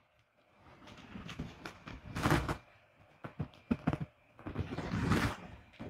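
Handling noise from a baitcasting reel being turned over in the hands: soft rubbing and rustling with a few light knocks.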